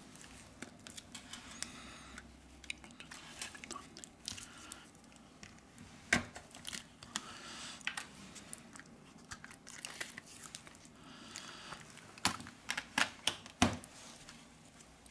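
Prying tools and tweezers scraping, crackling and clicking against a Huawei P Smart Plus 2019 smartphone as it is opened up, with adhesive tearing as the back cover comes away. There is a sharp click about six seconds in and a quick run of louder clicks near the end.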